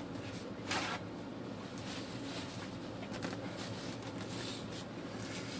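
A steady low mechanical hum runs throughout. About a second in there is a brief rustle of paper, with faint handling sounds later.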